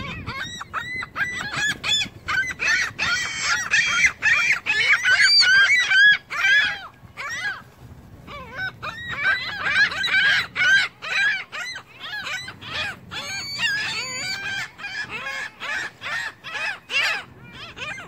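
Ring-billed gulls and Canada geese calling in a crowd at food: many short, rapid, overlapping cries. They are densest from about two to seven seconds in and again from about nine to seventeen seconds, with a brief lull near eight seconds.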